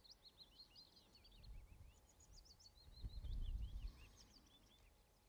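A songbird singing faintly: a fast, continuous string of high chirps and short trills. A brief low rumble comes through about three seconds in.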